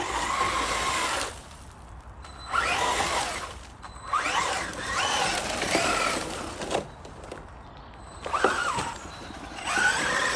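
Electric four-wheel-drive RC rally car's motor and drivetrain whining in about five bursts as the throttle is opened and closed, the pitch rising and falling with speed, with gravel hissing under the tyres.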